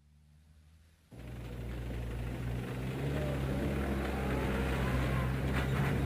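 Steady low rumble with even noise, like a vehicle running. It comes in suddenly about a second in after a faint hum, then swells slightly.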